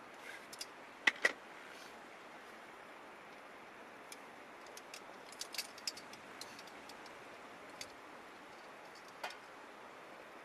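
Steady rush of a flowing river, with scattered sharp clicks over it: two louder knocks about a second in, a run of small ticks in the middle and a last click near the end.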